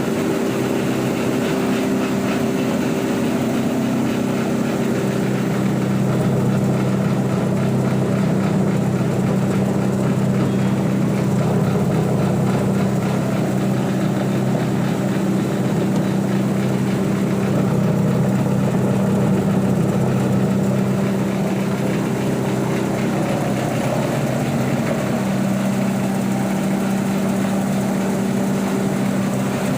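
Wood grinding machine for making sawdust powder, running steadily with a loud, even hum. It gets slightly louder from about six seconds in and eases back after about twenty seconds.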